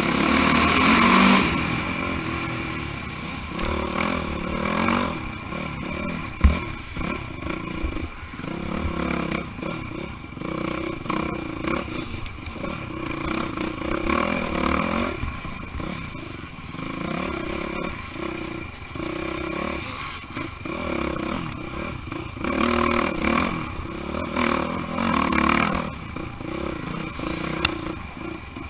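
Off-road dirt bike engine heard close up, revving up and down again and again as the rider races over rough ground, with the bike clattering over the terrain. A sharp knock comes about six seconds in.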